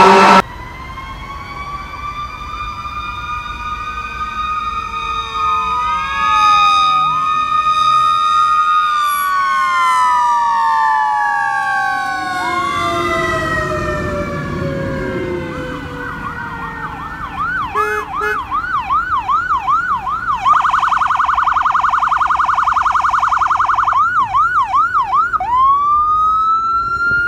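Sirens of fire apparatus responding: several electronic wails rising and falling over one another, then a single siren switching to a fast yelp, a rapid steady warble, back to the yelp, and into a rising wail near the end. A brief low rumble passes about halfway through.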